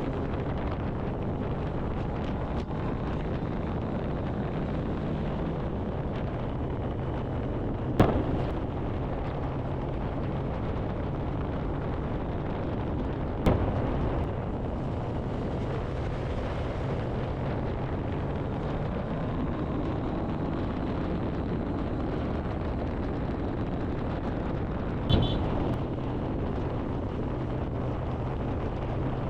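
Wind rushing over the microphone of a Kawasaki Ninja ZX-10R at highway speed, with the bike's inline-four engine holding a steady drone underneath. Three sharp pops break through several seconds apart.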